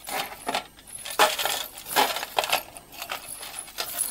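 A tangle of old costume jewellery, metal chains and bead bracelets, jangling and clinking as it is handled and lifted up in a bunch, in irregular rattles.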